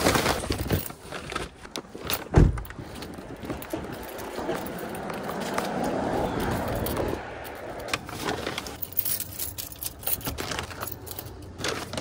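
Paper grocery bags crinkling and rustling as they are lifted and carried, with a single sharp thump about two seconds in. Passing street traffic swells and fades around the middle, and clicks and rattles near the end come as the house door is opened.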